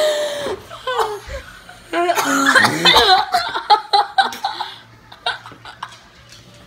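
Boys laughing hard, with coughing from a mouthful of dry ground cinnamon. It starts with a loud burst, is loudest from about two seconds in, and dies down over the last second and a half.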